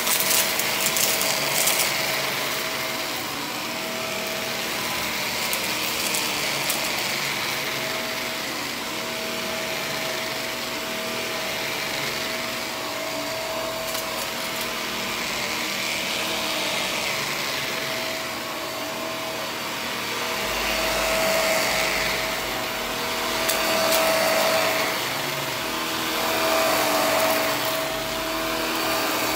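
HART upright vacuum cleaner running on carpet: a steady motor whine with a held tone, swelling and easing in level every few seconds as it is pushed back and forth. A few sharp crackles near the start.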